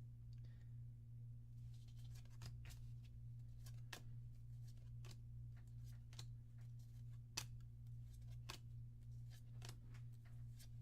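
Faint scattered clicks and rustles of trading cards and a foil booster-pack wrapper being handled, over a steady low hum.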